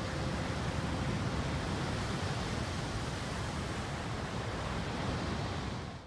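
Steady wash of ocean surf and wind on a sandy beach, with the last guitar notes dying away in the first half-second; it fades out at the very end.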